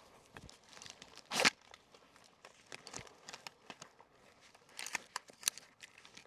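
Rustling and light clicks of clothing, sling and rifle as the rifle is handled and pushed out, with no shots fired. A louder brush of rustle about one and a half seconds in, and another cluster of rustles near the end.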